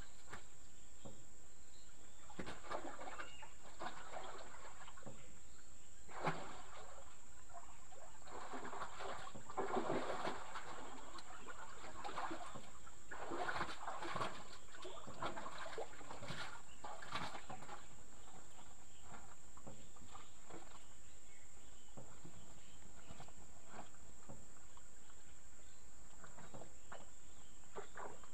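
Outdoor ambience with a steady high-pitched insect drone, broken by scattered light knocks and rustles, busiest in the first half.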